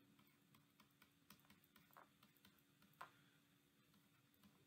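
Near silence with faint scattered ticks of a stylus tapping on a tablet screen while an equation is handwritten; the clearest tick comes about three seconds in.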